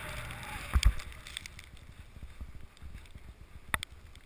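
Skis sliding through soft powder snow, a hissing swish that eases off after about a second. There is a low thump about a second in and a sharp click near the end.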